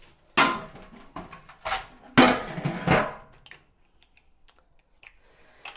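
Metal lid of a stainless steel brew kettle clanking and scraping as it is handled and set onto the pot: a few sharp ringing knocks in the first three seconds.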